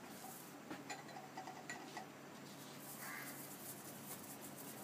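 Faint scraping and light taps of a steel spoon spreading oil over an aloo paratha on a hot tawa, over a faint sizzle of the frying.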